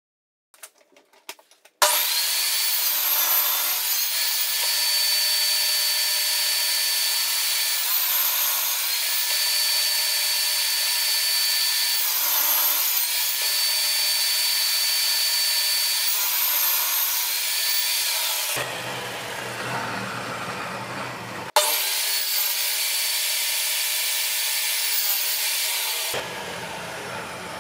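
Electric power tool running steadily on wood. It starts abruptly about two seconds in, with a slight dip in pitch every four seconds or so. The sound turns deeper and rougher twice near the end.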